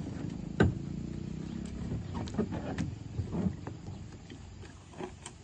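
A plastic kayak hull and paddle knocking against a concrete bank as a paddler climbs out. A sharp hollow knock comes about half a second in and is the loudest sound, followed a couple of seconds later by a few lighter clunks and scuffs.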